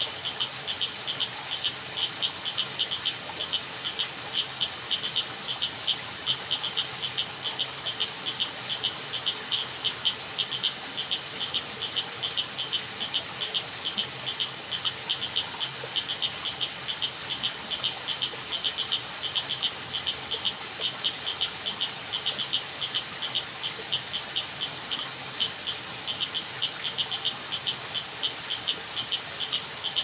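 Night-time chorus of frogs and insects, with a fast, unbroken stream of short, high clicking calls, several a second, over a soft background hum of calling.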